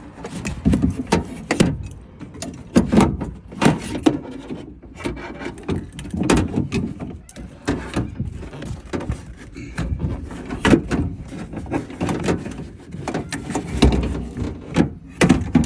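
Irregular clunks, knocks and scraping of a metal window regulator assembly being worked into the inner shell of a Ford Ranger's driver door, with the odd squeak of metal rubbing on metal.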